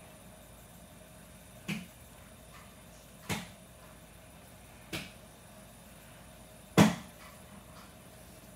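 Four separate sharp knocks, about a second and a half apart, the last one the loudest.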